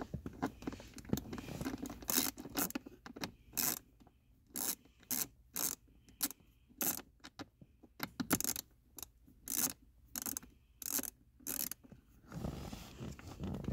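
Hand ratchet with an extension and socket backing a screw out of a car's plastic heater box, its pawl clicking in short rasping bursts on each back-swing, about twice a second. The bursts start about two seconds in and stop a little before the end.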